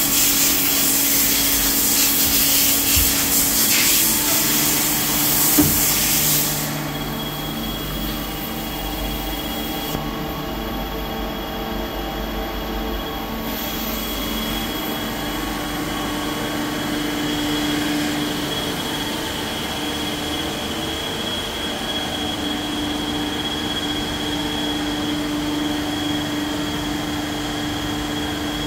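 Star SV-12 CNC Swiss-type lathe running, with a steady high whine and a lower hum. A loud hiss over the first six seconds or so cuts off suddenly, leaving only the machine's steady running sound.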